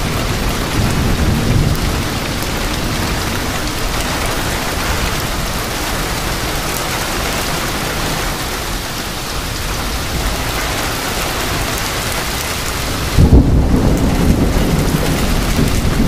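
Steady hiss of heavy rain in a supercell thunderstorm, with a low rumble underneath; about three seconds before the end a loud deep rumble of thunder sets in suddenly.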